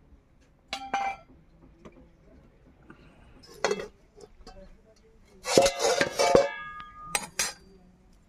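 Aluminium lid lifted off a cooking pot and set down: a few metal clinks, then a louder clatter with ringing about two-thirds of the way through, and two more clinks near the end.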